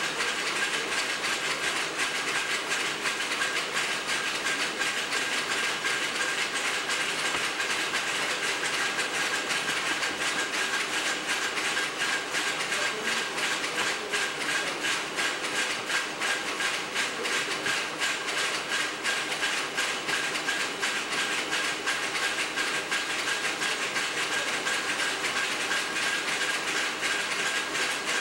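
Steady mechanical clatter of factory machinery running, a fast even rattle of ticks over a hiss, with a thin steady high whine.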